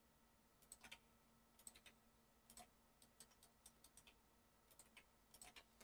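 Faint, irregular clicks of a computer mouse and keyboard, a dozen or so light taps over near-silent room tone.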